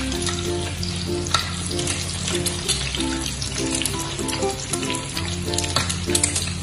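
An egg frying in hot oil, the oil sizzling and spitting as it is spooned over the egg, with light clicks of the metal spoon against the pan. Background music with a melody and bass line runs underneath.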